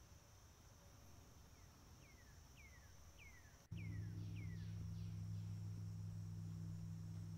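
A steady high-pitched insect chorus of crickets, with a bird singing a quick series of about six down-slurred whistles, roughly two a second, that fade out. About halfway through, a steady low hum starts abruptly and becomes the loudest sound.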